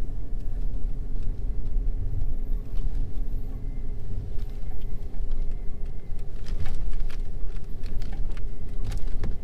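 A vehicle driving, heard as a steady low rumble with a few sharp rattles or knocks, a cluster about two-thirds of the way through and another near the end.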